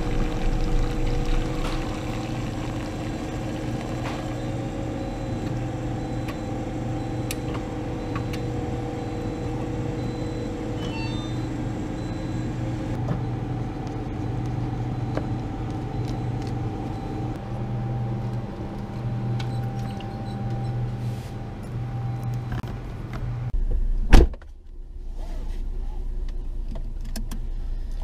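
Steady mechanical hum of a self-serve coffee machine and shop fridges, with several low steady tones. Near the end comes one loud thump, then a quieter low hum.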